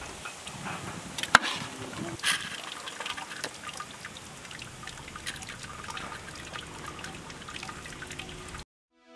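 Thick goat-trotter nahari gravy dripping and trickling off a ladle back into the pot, with small ticks and taps. One sharp knock, the loudest sound, comes about a second and a half in, and the sound cuts off just before the end.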